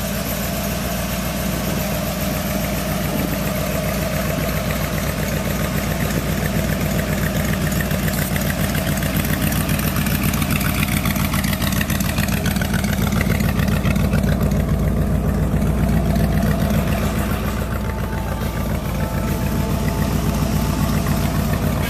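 1956 Ford F100 pickup's engine idling steadily, a low even rumble.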